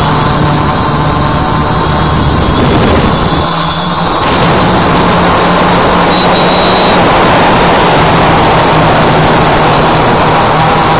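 Walkera Voyager 3 camera drone's electric motors and propellers buzzing loudly, heard from its own onboard camera, with a steady high whine over a rushing haze. About four seconds in the motor hum steps up in pitch as the drone climbs.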